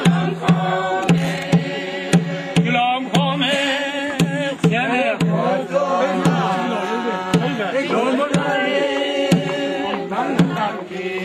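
A group of voices singing a chant together for a circle dance, over a steady drum beat about twice a second.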